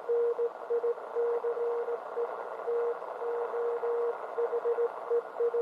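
Morse code (CW) on the 10-meter band from a Realistic HTX-100 transceiver: a single steady beep keyed on and off in dots and dashes, over constant band hiss.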